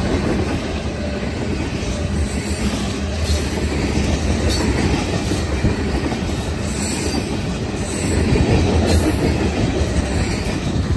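Railroad tank cars of a freight train rolling past close by: a steady rumble of steel wheels on the rails, with wheels clacking over rail joints, a little louder about eight seconds in.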